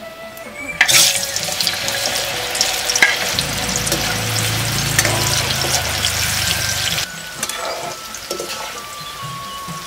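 Pumpkin strips going into hot coconut oil in a metal wok and deep-frying, with a sudden loud sizzling and crackling of bubbling oil starting about a second in. A metal spatula scrapes and turns them in the wok. The sizzle drops to a quieter level about seven seconds in.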